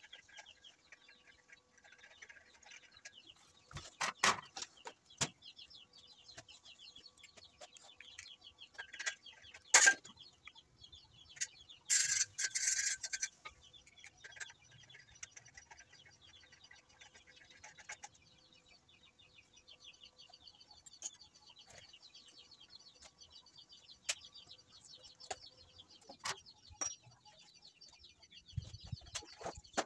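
Birds clucking and chirping steadily in the background, with scattered knocks and clicks of metal parts being handled on a steel welding-machine trolley. A sharp knock about ten seconds in and a harsh rasp lasting about a second just after are the loudest sounds.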